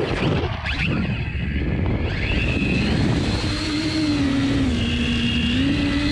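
Four brushless motors and propellers of a 12S X-Class quadcopter whining as heard from its onboard camera, the pitch stepping up and down with the throttle. The first second or so is a rougher, uneven rush before the steady whine settles.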